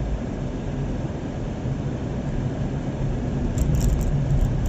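Steady rumble of a vehicle driving, engine and road noise heard from inside the cabin, with a few faint clicks near the end.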